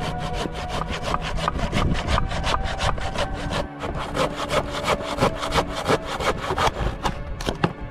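Hand pruning saw cutting through a weathered wooden plank in quick back-and-forth strokes, about four or five a second, with a short break about halfway.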